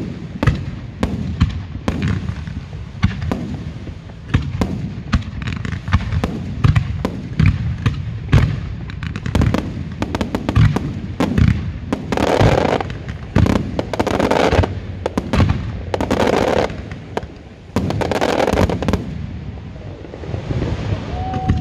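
Fireworks finale: a rapid, unbroken barrage of shells and single shots bursting. In the second half, four second-long rushes of crackling come about two seconds apart, matching the glittering white crackling stars.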